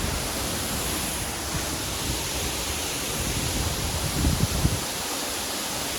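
Waterfall rushing with a steady, even noise, with a few brief low thumps about four seconds in.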